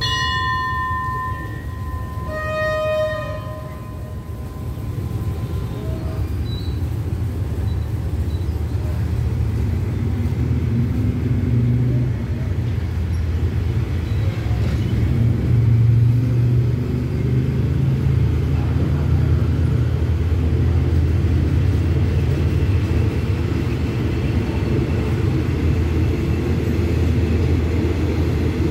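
A few ringing chime tones in the first three seconds, then a passenger train pulling away from the platform. The low rumble of the locomotive and carriages rolling past builds over several seconds and then holds steady.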